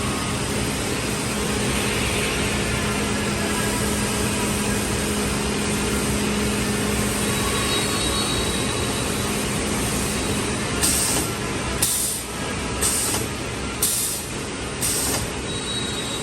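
CNC panel saw with automatic board gripper running, a loud steady machine noise with a low hum. In the second half come five short sharp hisses about a second apart, like pneumatic valves letting out compressed air.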